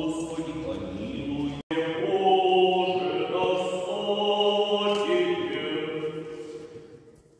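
Church choir singing an Orthodox liturgical chant in long held notes in several voices. There is a brief break about a second and a half in, and the singing fades out near the end.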